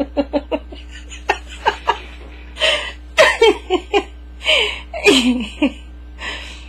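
A person laughing in bursts, with breathy gasps and short chuckles between.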